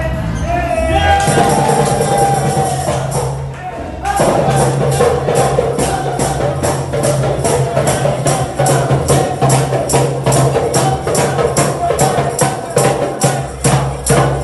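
Upbeat music with singing near the start, then a fast, steady tambourine beat of about four strikes a second that comes in after a short lull about four seconds in.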